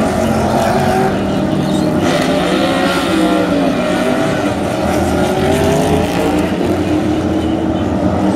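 Several NASCAR Cup cars' V8 engines running together down pit road. Their pitches overlap and rise and fall as the cars pull out of their stalls and pass.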